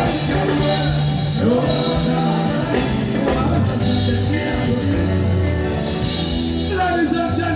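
Band music with a singer: long held bass notes under a voice that slides between pitches.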